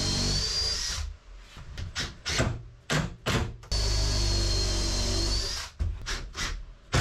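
Power drill boring screw holes into wood with a counterbore bit, running in two bursts of about a second and a half and two seconds with a steady whine that rises slightly near the end of the second. The counterbore is worn out and cutting ragged holes. Sharp clicks and knocks come between and after the bursts.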